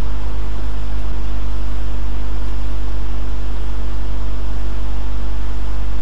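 Loud, steady hiss over a low hum with a few constant tones. There are no distinct events such as a bat hitting the ball.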